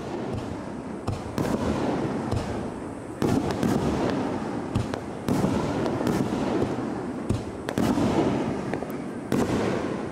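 Aerial firework shells bursting in quick succession, sharp bangs every second or two over a continuous rolling echo reverberating off the surrounding mountains.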